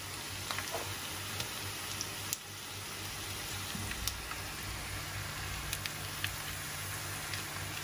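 Minced meat and diced carrot filling sizzling in a frying pan: a steady hiss with scattered small crackles and pops.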